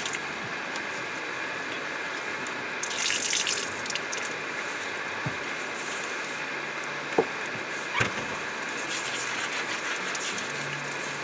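Steady hiss of rain, with a brief gush of water about three seconds in and two light knocks around seven to eight seconds in.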